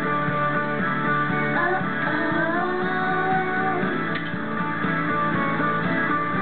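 Song with guitar playing, its melody gliding in pitch about two seconds in.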